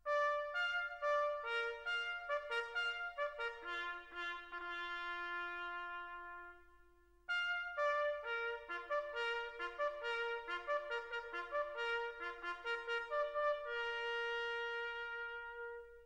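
Background music: a slow melody on brass instruments, led by trumpet, in two phrases with a short break about seven seconds in.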